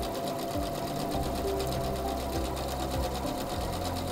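SINGER C430 computerized sewing machine stitching steadily, its needle going up and down in a rapid, even rhythm as it sews out a decorative feather stitch elongated to double length.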